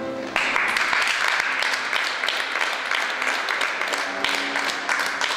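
Audience applause from a seated crowd, starting abruptly about a third of a second in and continuing as a steady clatter of many hands clapping.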